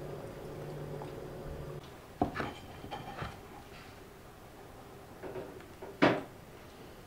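A steady low hum, cut off about two seconds in, then a few soft clicks and knocks of tableware being handled on a wooden tray, and one louder short knock about six seconds in.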